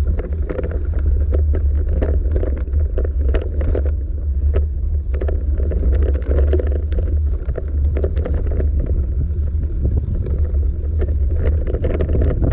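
A mountain bike riding over a dry, rutted dirt track, with frequent short clicks and rattles from the tyres and bike over the rough ground. Wind rumbles heavily on the microphone throughout.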